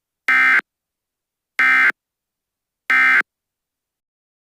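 Emergency Alert System end-of-message signal: three identical short bursts of SAME digital data tone, each about a third of a second long and about a second and a quarter apart. The signal marks the end of the alert message.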